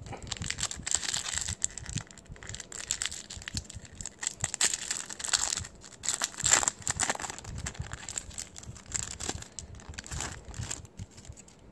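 Foil trading-card booster-pack wrapper being crinkled and torn open by hand: a dense, irregular run of crackling rustles, loudest about halfway through.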